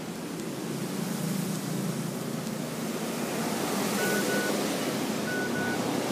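Steady background traffic noise with a low rumble. Two quick pairs of short high beeps come about four seconds in and again a second later.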